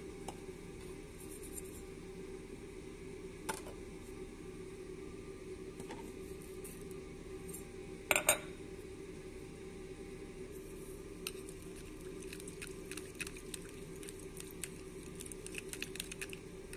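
A spoon stirring sauce in a plastic tub, light clicks against the container coming thick and fast over the last five seconds or so. There is a short double clatter about eight seconds in, over a steady low hum.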